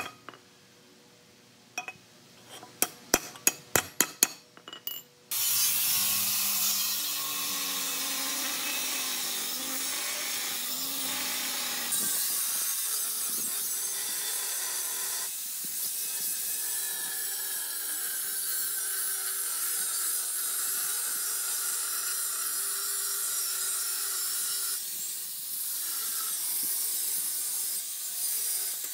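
A few sharp metallic clinks, then from about five seconds in a hand-held power tool running steadily against metal, its sound shifting a little as the load changes.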